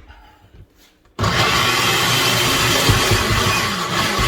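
Countertop blender switched on about a second in and running loud and steady, chopping whole tomatoes and garlic in red wine vinegar.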